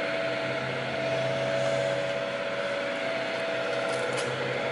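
Multifunctional wrought-iron forming machine's electric drive running with a steady hum.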